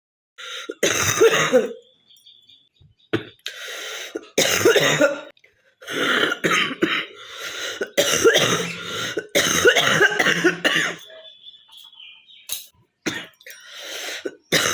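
A girl coughing over and over, in a run of short coughing bursts with brief pauses between them and one longer pause of about two seconds past the middle.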